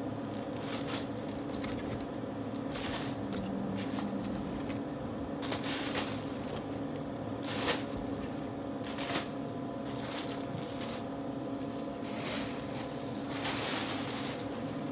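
Thin plastic shopping bag rustling and crinkling in irregular bursts as it is handled and opened out, over a steady background hum.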